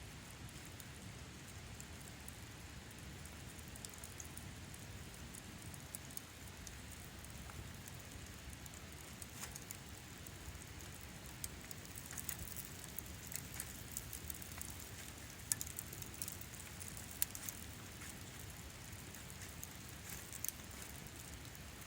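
Wood campfire crackling: scattered sharp pops and snaps, more frequent in the second half, over a steady low background noise.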